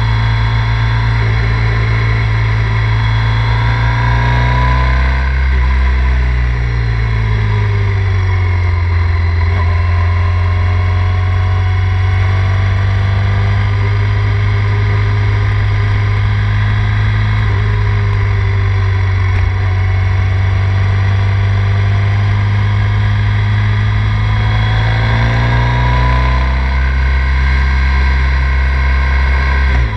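Triumph Thruxton 900's 865 cc air-cooled parallel-twin engine running under way, heard from the rider's seat. The engine note changes pitch around five seconds in and again near the end, with a long steady cruising stretch in between.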